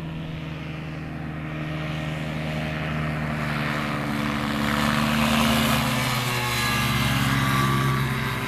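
A Kolb Firefly ultralight's small two-stroke engine and pusher propeller drone steadily as the plane flies low past on its landing approach. The sound grows louder as it nears and is loudest in the second half as it passes close.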